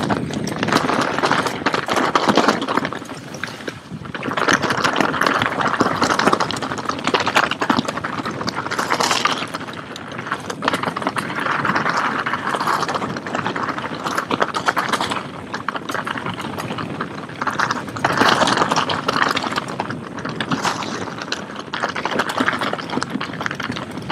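Mountain bike riding over a rough, rocky trail: a constant rattle and crunch of tyres and bike parts over stones, swelling louder in stretches.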